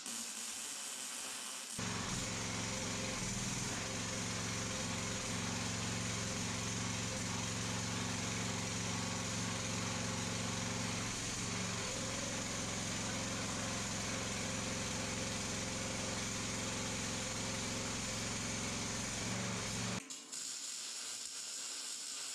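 Log splitter's small gasoline engine running steadily, starting and stopping abruptly about two seconds in and two seconds before the end, with a slight change in its note about halfway through. A steady hiss fills the gaps on either side.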